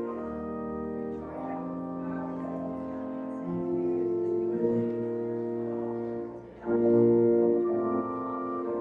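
Organ prelude: held chords that change every second or so, with a brief drop in level about six and a half seconds in and a louder chord just after.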